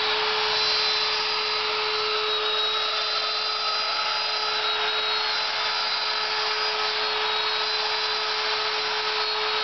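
Router spindle of a homemade CNC router running at about 18,000 RPM, a steady whine, while its 1/8-inch two-flute carbide endmill mills a plywood clock gear. Faint high tones above the whine waver slightly.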